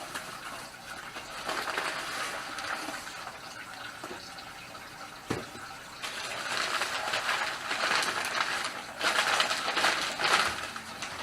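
Packaging rustling and crinkling as a parcel is torn open by hand, irregular and louder in the second half, with a single knock about five seconds in.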